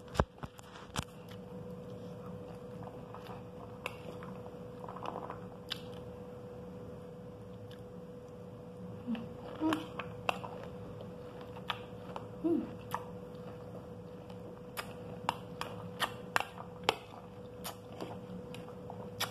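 Metal spoon clicking and scraping against a glass plate of pomegranate seeds at irregular moments, with chewing of the juicy seeds, over a steady background hum. A single louder knock comes near the start.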